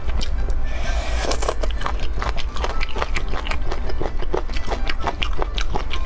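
Close-miked crisp bites and chewing as pieces of green vegetable are pulled off a bamboo skewer with the teeth, a quick run of crunchy crackles throughout, with music underneath.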